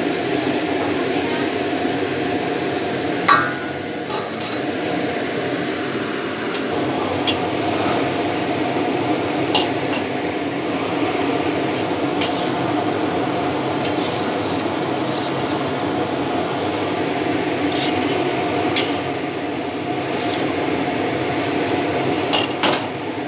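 Steady mechanical hum over a wok of corn and egg soup with fish fillet simmering on the stove, broken by a few sharp clicks; two come near the end as a metal spoon goes into the wok.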